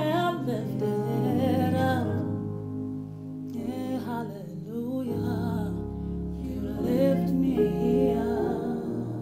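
A woman singing a slow worship song, with long held notes that slide and bend, over sustained accompanying chords that change every few seconds.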